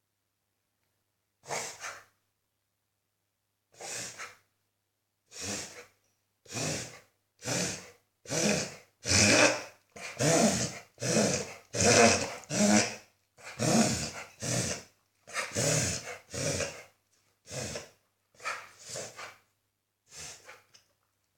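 Beagle reverse sneezing: about twenty harsh, noisy inhalations through the nose. They come about two seconds apart at first, crowd together and grow loudest in the middle, then slow and fade near the end.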